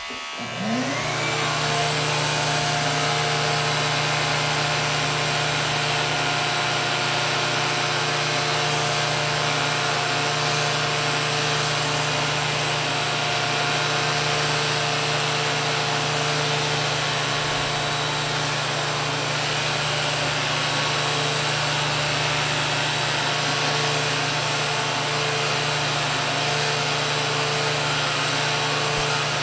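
A Flowbee vacuum haircutter running: the vacuum cleaner and the clipper head spin up in the first second or so, then run with a loud, steady hum and rush of air as the head is drawn through the hair.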